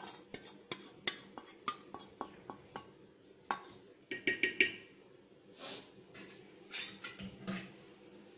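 Small steel pan being scraped and knocked against as fried ginger-garlic paste is emptied from it into a clay pot: a quick run of sharp metal clicks and scrapes, with a ringing clatter of metal about four seconds in.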